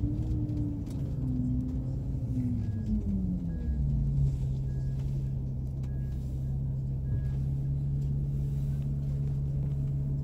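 Diesel engine and drivetrain of a GO Transit coach bus droning in the cabin at highway speed. Its pitch falls over about a second and a half a few seconds in, then holds steady. A few faint short beeps come about a second apart in the middle.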